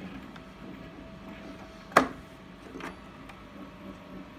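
Wind-up Victrola phonograph running with a 78 rpm record turning on the felt turntable: a steady low mechanical hum with light, fairly regular ticks. A single sharp click about two seconds in and a softer one shortly after come from the phonograph's mechanism.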